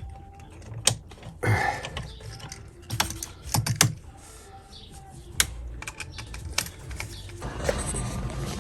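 Irregular clicks and short rustles of electrical wires being handled and twisted together by hand. A steady broad noise comes in near the end.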